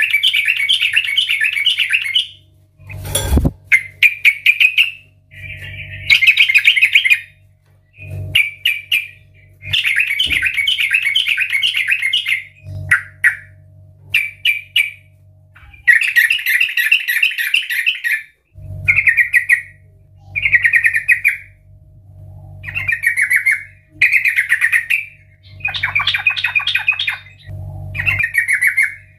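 Yellow-vented bulbul (trucukan) singing loudly in full, open song: chattering, bubbling phrases of a second or two each, repeated over and over with short pauses. A single sharp knock sounds about three seconds in.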